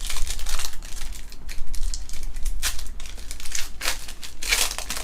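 Trading-card packaging crinkling and tearing as packs are ripped open, a run of irregular sharp rustles, loudest about two-thirds of the way through and again near the end.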